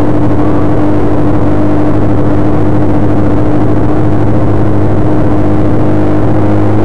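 Suzuki GSX-R1100 inline-four engine running at a steady cruise, its pitch holding level, heard from the rider's seat over steady wind and road noise.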